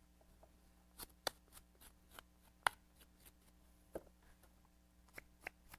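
Short, sharp scratches and ticks of a hand tool scoring leather-hard clay, coming irregularly, with the loudest nearly three seconds in.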